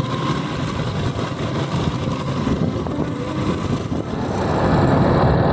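Motorcycle running along the road with wind rushing over the microphone, growing louder about four seconds in.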